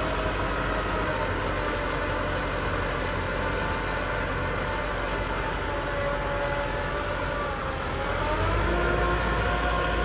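Kubota tractor's diesel engine running steadily under load while pulling a disc harrow through dry ground. Near eight seconds in its note sags briefly, then picks up again a little louder.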